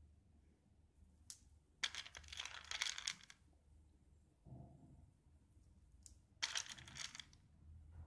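Small plastic beads clicking and rattling against each other as they are handled and threaded onto a string, in two short bursts of clattering, about two seconds in and again about six and a half seconds in.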